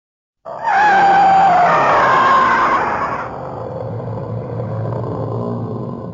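Gamera film sound effect: a loud screech with a wavering pitch that starts suddenly about half a second in, holds for about three seconds, then dies away into a lower rumble.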